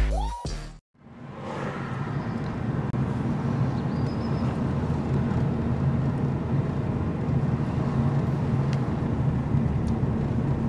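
Street traffic: car engines and tyres making a steady low rumble, fading in about a second in after a music track cuts off.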